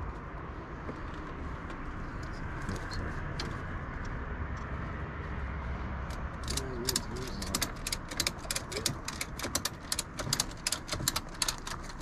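Ratchet strap being cranked tight: a rapid run of sharp metallic clicks starts about halfway through, over a steady low hum.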